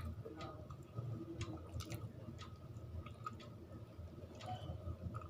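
A person eating rice with fish curry and dal: wet chewing and lip-smacking, with short moist clicks at irregular intervals.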